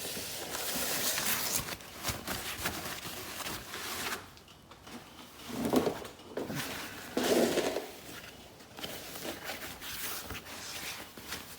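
A cardboard shipping box being opened by hand, with packaging scraping and rustling, and two louder bumps about halfway through.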